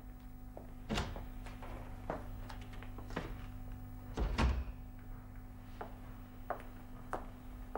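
Scattered knocks and thuds as a cook moves about a kitchen. The strongest comes about a second in and a heavier double thud about four seconds in, all over a steady low hum.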